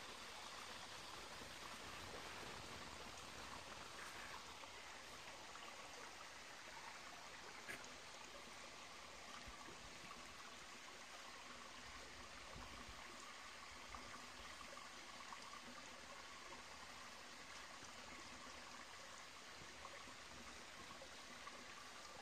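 Small woodland stream faintly trickling over rocks, a steady quiet babble with a couple of tiny ticks.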